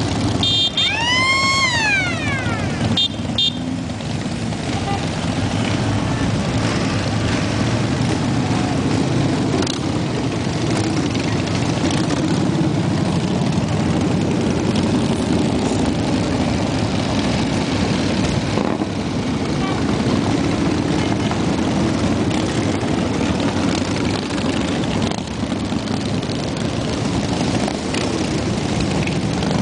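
A long column of large cruiser and touring motorcycles riding slowly past, many engines together making a steady low rumble. About a second in, a short high pitched whoop rises and falls over the engines.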